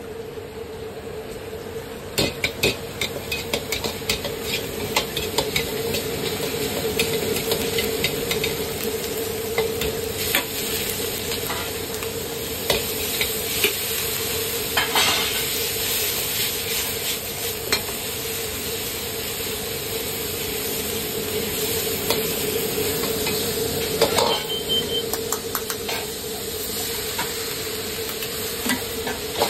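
Stir-frying in a wok on a gas burner: food sizzling steadily while a metal ladle clanks and scrapes against the wok, the strikes starting about two seconds in and coming irregularly. A steady hum runs underneath.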